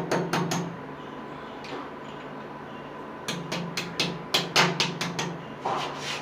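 Rapid sharp taps, about four a second, in two runs: one in the first second and a longer one from about three seconds in. A low hum sits under the taps.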